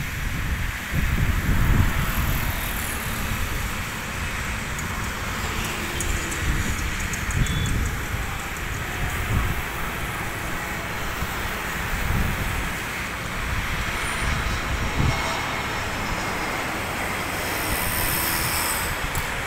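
Wind buffeting the microphone in repeated gusts over a steady outdoor rumble of road traffic.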